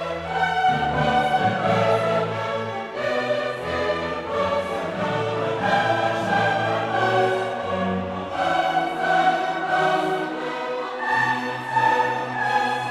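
Classical-style background music: a choir singing over an orchestra, with sustained notes that change about every second.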